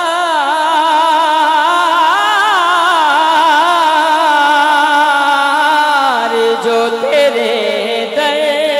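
A man singing a naat through a microphone and PA, one long melismatic phrase with the pitch wavering and sliding up and down; about six seconds in the voice settles onto steadier held notes.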